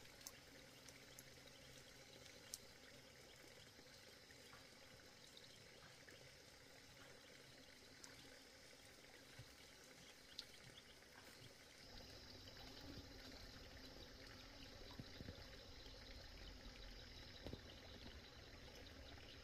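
Near silence: faint outdoor ambience, an even soft hiss with a few light ticks. About two-thirds of the way in, a faint high steady tone and a low rumble join it.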